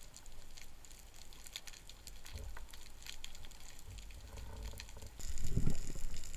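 Underwater ambience: a faint crackle of many small scattered clicks over a low rumble, swelling into a louder low rush of water about five seconds in.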